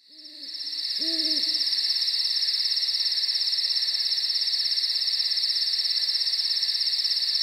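Night ambience: an owl hoots twice near the start over a steady, high, fast-pulsing insect trill that fades in over the first second.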